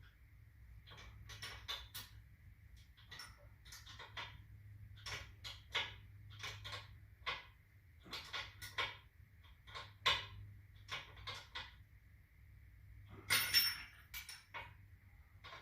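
Wrench working the nut on a truck-rim valve stem: irregular light metal clicks and clinks, with a louder clatter near the end.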